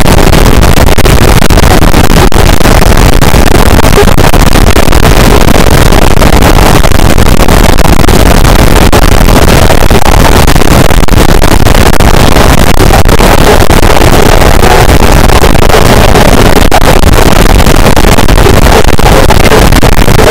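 Harsh noise wall: a dense, unchanging wall of distorted static at full loudness, from deep rumble up to high hiss, with no rhythm, pitch or breaks.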